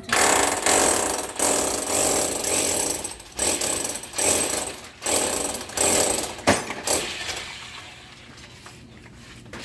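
Power drill boring into a wall in a series of short bursts, stopping about seven seconds in.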